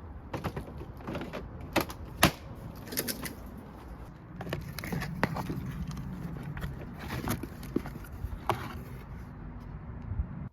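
A series of sharp clicks and knocks from handling, as of parts of a new electric lawn mower being unpacked or fitted, over a low steady hum that comes in about halfway through.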